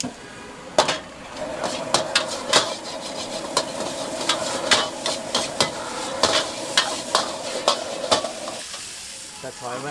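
Noodles stir-fried in a wok. A metal ladle scrapes and knocks against the wok over and over as the food sizzles steadily.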